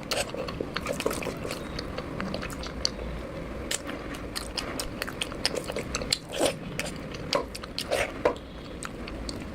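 Close-up chewing and biting sounds of a person eating fish curry with rice, with irregular mouth smacks and clicks, a few louder ones about two-thirds of the way through.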